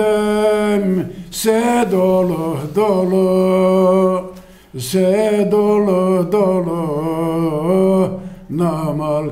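A man's solo unaccompanied voice singing a sorrowful Pomak folk song (türkü) in long, slowly wavering held phrases, breaking off for breath about a second in, midway, and near the end.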